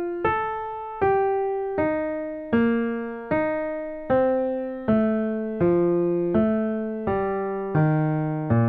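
Piano playing a triad-pair line slowly, one note at a time, about one note every three-quarters of a second. It alternates F major and E-flat major triad notes, each group descending and turning back up, and works lower overall.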